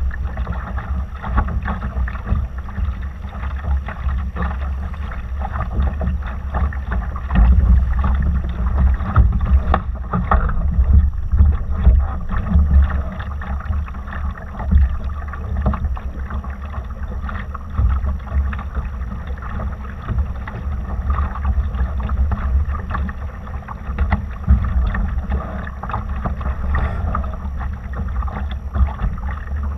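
Wind buffeting the microphone in gusts over water rushing and splashing along the hull of a Laser dinghy under sail.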